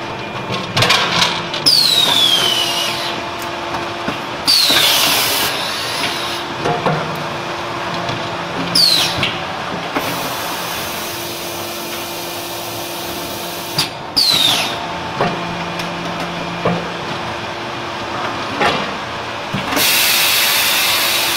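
Cement terrazzo tile press machine running through its pressing cycle: a steady machine hum, scattered clanks and knocks, and several short hisses, each starting with a whistle that falls in pitch.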